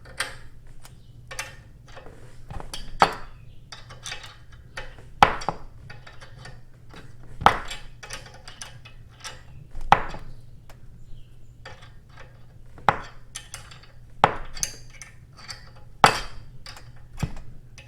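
Steel winding rods clinking and knocking in the winding cone of a garage door torsion spring as it is wound up in quarter turns: sharp metallic clinks about every two seconds.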